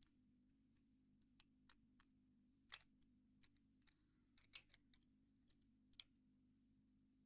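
Faint, scattered small metallic clicks and ticks of homemade lock picks working inside a Squire 660 padlock, the sharpest a little under three seconds in and again around four and a half and six seconds, over a faint steady hum.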